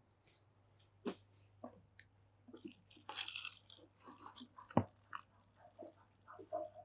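Hands working through wet hair at a shampoo basin: soft wet crackling and squishing, with scattered clicks, two of them sharper, about a second in and near five seconds.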